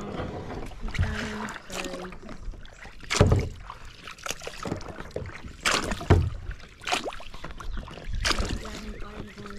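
Kayak paddle strokes splashing and swishing through the water, several uneven strokes in a row.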